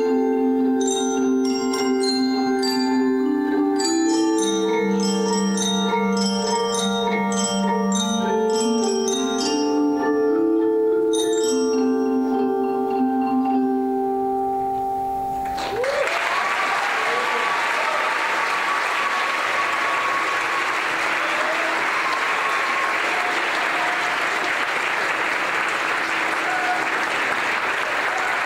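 Children's Orff mallet ensemble of wooden xylophones playing the closing phrase of a pop song, with ringing struck notes over a moving bass line. The music stops about halfway through, and audience applause follows to the end.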